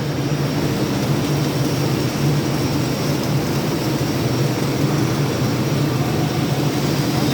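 Automatic gantry flux-cored arc welder laying a fillet weld: a steady crackling hiss of the arc over a constant low machine hum.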